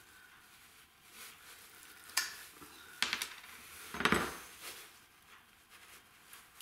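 Thin steel protractor parts clinking and scraping against each other as they are handled and worked apart, with a few sharp metallic clicks about two, three and four seconds in.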